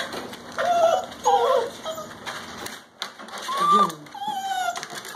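Puppies whining: a few short whines in the first two seconds, then a longer whine that slides down in pitch in the second half.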